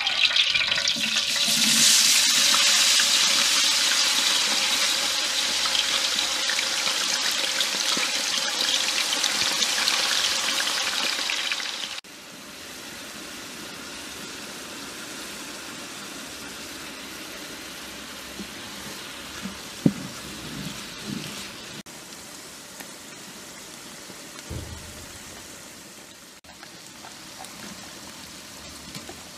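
Minced onion frying in hot oil in a large aluminium pot: a loud, dense sizzle that drops suddenly to a quieter, steady sizzle partway through, with a few knocks from the wooden paddle stirring it.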